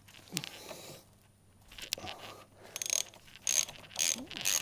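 Ratchet wrench clicking through a run of short strokes, undoing the nuts on a motorcycle rear-suspension dog-bone bolt. The strokes come roughly twice a second and grow louder in the second half.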